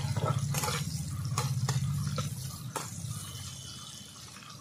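Sliced onions sizzling in hot oil in a karahi, with a metal spatula scraping and knocking against the pan several times as they are stirred. A low rumble underneath fades out about halfway through.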